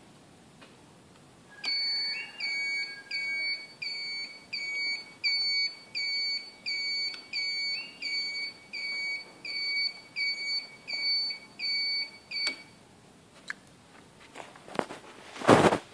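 An electronic beeper sounding a high-pitched beep over and over in an even rhythm, about one and a half beeps a second, starting about two seconds in and stopping a few seconds before the end. Near the end comes a loud, brief rustle or bump.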